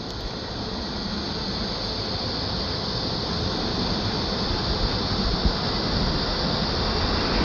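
Jet airliner engine noise, a steady rushing sound that grows gradually louder as the aircraft nears or powers up.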